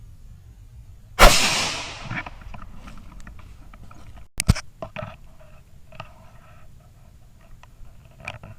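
A single .17 HM2 rifle shot about a second in, with an echo that dies away over about a second, followed by scattered small clicks and rustles.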